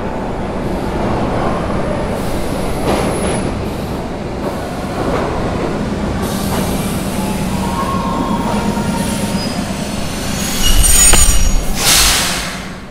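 Vintage New York City subway train pulling into an underground station. A steady rumble of wheels and motors builds as it comes in, then high wheel and brake squeals and the loudest passage come near the end as it slows alongside the platform, followed by a short hiss just before the end.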